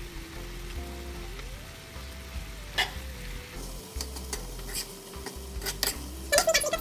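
Minced meat and peas sizzling in a pot as a spoon stirs them, with a few light knocks of the spoon against the pot.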